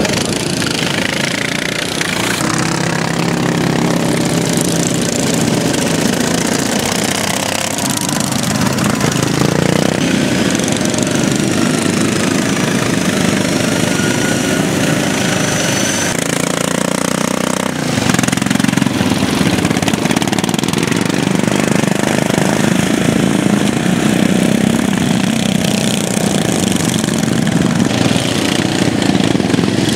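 Several racing lawn mowers' small engines running hard, their pitch rising and falling as they rev and ease off through the course. They get louder a little past halfway.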